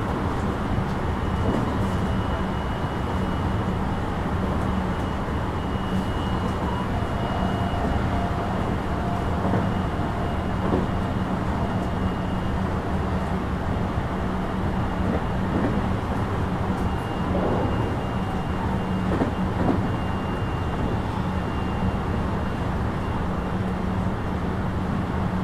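JR West 223 series 2000 subseries electric train running steadily at speed, heard from inside the carriage: a constant rumble of wheels on rail with a faint steady high tone and occasional light knocks.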